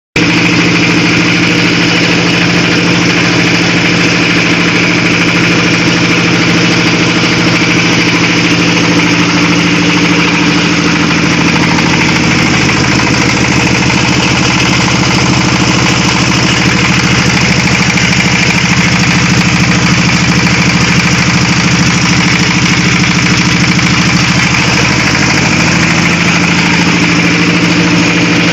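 Floating fish-feed pellet extruder machine running with its drive engine, a loud steady mechanical drone. The engine note drops a little about eleven seconds in and comes back up near the end.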